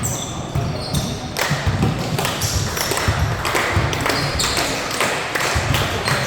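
Basketball game sounds on an indoor court: a ball bouncing and thudding on the floor and sneakers squeaking, over a steady background of crowd noise.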